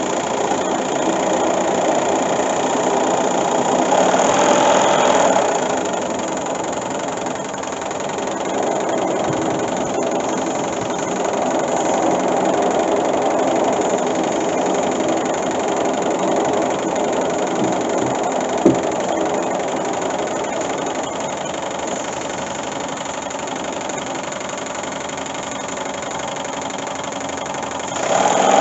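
Small model oscillating two-cylinder steam engine, horizontally opposed and single-acting, running fast with a steady, even clatter. It grows louder about four seconds in and again at the very end. A single sharp click comes about two-thirds of the way through.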